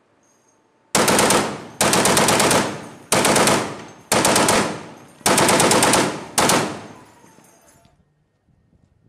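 Ship-mounted machine gun firing six short bursts of automatic fire, each under a second long and trailing off before the next.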